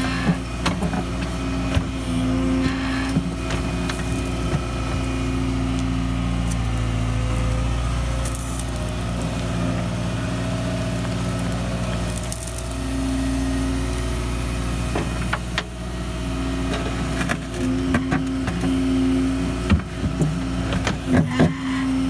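Excavator digging a trench: its diesel engine runs steadily while the hydraulics labour, shifting in pitch as the bucket works, and the bucket scrapes through soil and stones, with scattered knocks in the second half.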